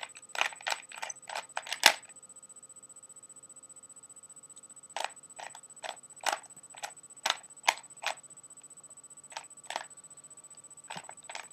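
Rubik's Cube layers being turned by hand, making sharp plastic clicks. A quick run of turns comes first, then a pause of about three seconds, then single turns at irregular intervals.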